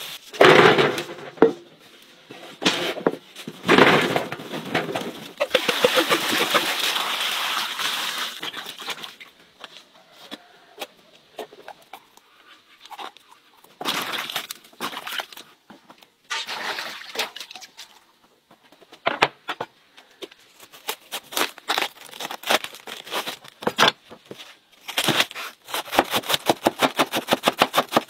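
Hand-harvesting and kitchen prep sounds: leaves rustling and scattered sharp snaps and knocks as bell peppers are picked and handled, then near the end a fast, even run of knife chops on a board, several a second.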